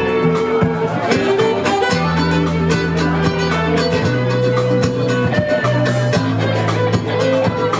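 A live band playing an instrumental tune: guitar over a steady bass line, with a regular drum beat.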